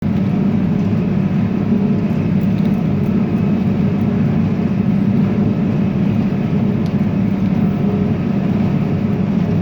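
A tractor's engine running steadily while baling hay, a constant drone with no change in speed.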